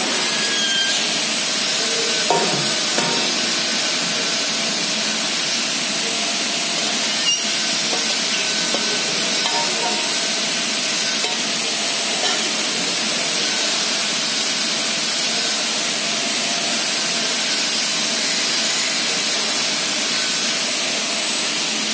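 Paddle mixer running, its paddles on a horizontal shaft churning powder in a steel trough: a steady hissing rush with a faint high whine and a few light knocks.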